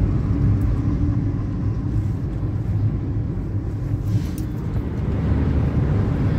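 Steady engine and road rumble of a Hyundai car being driven, heard from inside the cabin.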